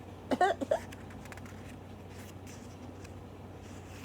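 A woman's voice acting out a flea's little cough: a quick cluster of two or three small voiced coughs about half a second in, then quiet room tone with a faint steady hum.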